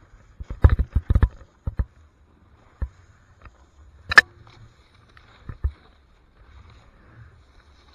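Muffled knocks and clatter picked up by a handheld pole-mounted action camera as the snowboarder rides a bumpy trail. There is a cluster of knocks from about half a second to two seconds in, one sharp, loud knock about four seconds in, and a couple more after five and a half seconds, over a faint low rumble.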